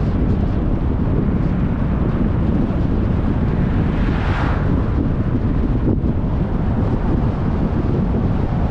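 Steady low rumble of wind and road noise from a moving car, buffeting the microphone, with a short swell of hiss about four seconds in.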